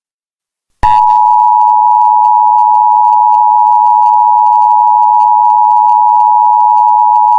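Emergency Alert System two-tone attention signal: two steady tones sounded together, starting suddenly about a second in after a short silence and holding unchanged.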